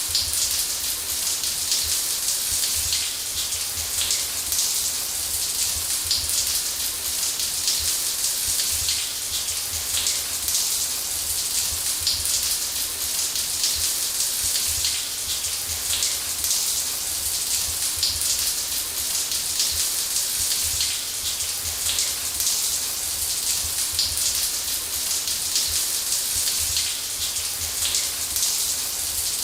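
Shower spray running steadily: an even, bright hiss of water with dense fine spatter and a low rumble underneath.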